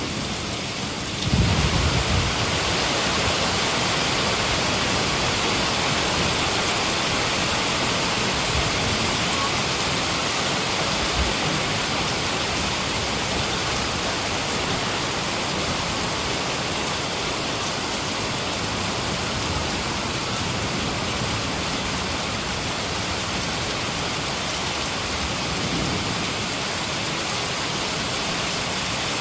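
Steady heavy rain, a dense even hiss. About a second in it swells louder with a low rumble of thunder.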